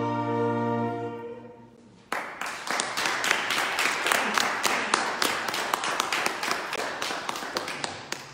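The final held chord of a sung carol dies away, then about two seconds in the congregation starts applauding, the clapping slowly fading toward the end.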